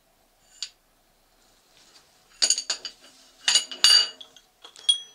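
Two steel milling-machine drawbars (ramrods) clinking against each other and against metal as they are handled and set down. There is a faint tick under a second in, then sharp ringing clinks about two and a half seconds in, a louder cluster around three and a half to four seconds, and one more near the end.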